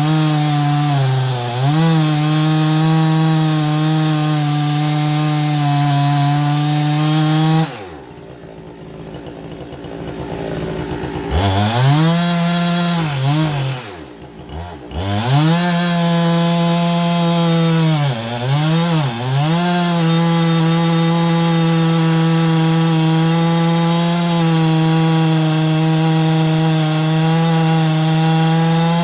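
Two-stroke chainsaw running at high revs, sawing pine wood. About a third of the way in it drops to idle for a few seconds, then revs up again with several brief dips in pitch before holding steady at full speed.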